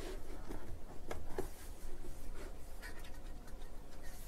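Dell 2624 gigabit switch's metal case cover scraping and rubbing as hands slide it back to open it, with a few sharp clicks about a second in.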